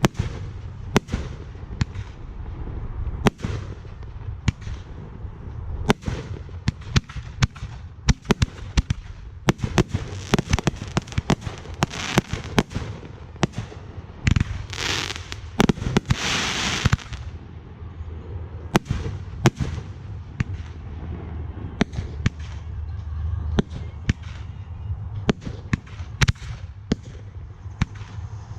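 Aerial fireworks display: a rapid, irregular string of sharp booms and pops from shells bursting, with a few longer stretches of hissing in the middle.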